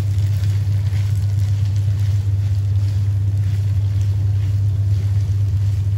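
A loud, steady low hum, with sliced chillies, onions, ginger and garlic frying in chilli paste in a non-stick wok and stirred with a plastic spatula. The stirring adds faint scrapes and a light sizzle over the hum.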